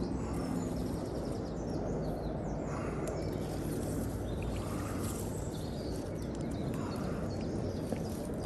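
Outdoor ambience: a steady low rumble like wind on the microphone, with small birds chirping now and then.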